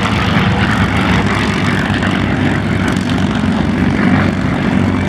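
Piston-engine propeller aircraft running steadily: an even engine drone with propeller noise.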